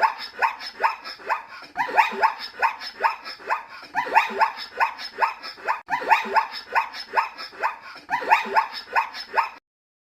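A dog barking in a quick, steady run of short barks, about two to three a second, stopping near the end.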